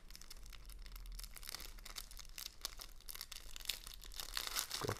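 Clear plastic packaging bag crinkling and crackling as fingers pick at it and pull it open, a run of many small crackles.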